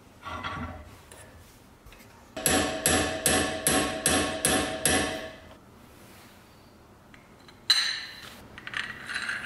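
A hammer strikes a steel pin set in a shaft resting on open vise jaws. It lands about eight quick, even blows, roughly two or three a second, and each blow rings like metal. A single knock comes just before, and near the end there is a sharp metallic clink followed by a few lighter clinks as a metal part is handled.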